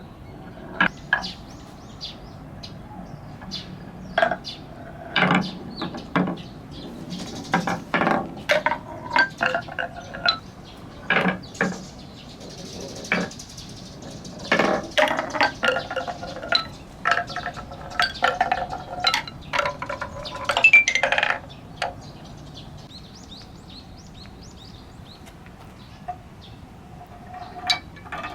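Big balls rolling and dropping step by step down a wooden stair-slope marble run, a quick string of clacks and knocks on wood with short ringing tones. The clacking is busiest for about the first twenty seconds, then mostly stops, with a few more knocks near the end.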